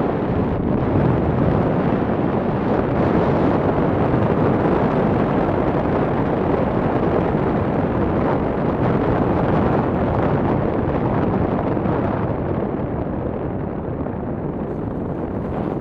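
Wind rushing over the microphone of a camera on a moving motorcycle, a loud steady roar with road noise underneath. It eases slightly near the end.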